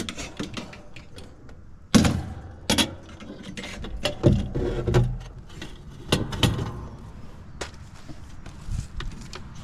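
Sheet-metal heat strip kit being handled and worked into a heat pump cabinet: irregular metal clicks, knocks and scrapes, the loudest knock about two seconds in, with rustling of its wiring.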